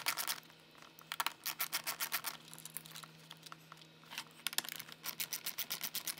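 Ratcheting hand driver with an 8 mm socket clicking in several quick runs of even clicks, with short pauses between them, as the nuts holding a stock door speaker are backed off.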